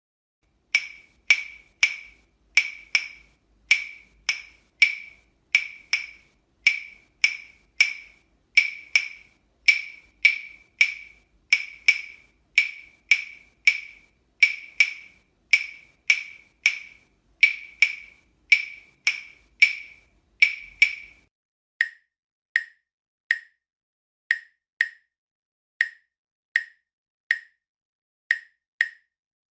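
Claves struck together in a rhythm, each hit a sharp, bright wooden click with a short ring at one high pitch. About 21 seconds in, the strikes become sparser and a little lower in pitch.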